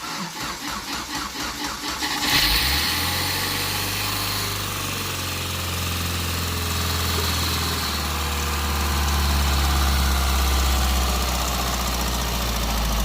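An engine cranks over with a rapid, even rhythm for about two seconds, catches and starts, then settles into a steady idle.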